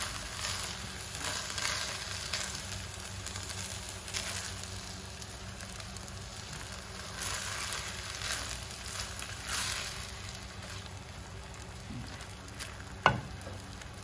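Glutinous rice sizzling as it is stir-fried in oil and seasoning liquid in a non-stick wok, with a silicone spatula scraping and turning it in irregular strokes. The liquid is cooking off until the rice is dry and shiny. A single sharp knock comes near the end.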